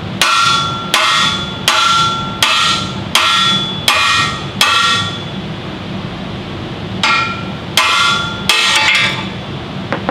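Hammer striking a steel pry bar to drive out an axle tube seal inside a Dana 60 front axle housing: sharp, ringing metal blows, seven in a steady rhythm, a pause of about two seconds, then three more.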